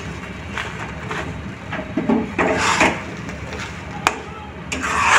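Metal spatula scraping and stirring boiled broken wheat (dalia) in a non-stick kadai, a few separate strokes, with a sharp click about four seconds in.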